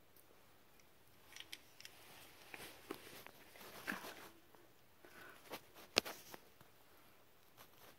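Scattered faint scrapes, rustles and small knocks of a person shifting about in a tight cave crawlway, with a single sharp click about six seconds in.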